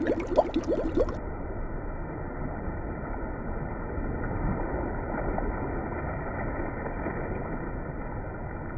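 Waterfall and stream water rushing steadily. In the first second there is a run of short pitched sounds; about a second in the sound turns suddenly duller and stays a steady rush.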